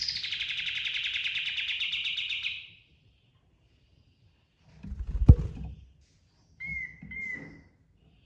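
Kapas tembak songbird singing a fast rolling trill for about two and a half seconds, then a single sharp knock about five seconds in, then two short clear whistles near the end.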